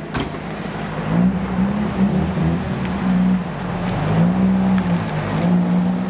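Car engine revving hard, its note rising and falling again and again, over a steady rushing noise.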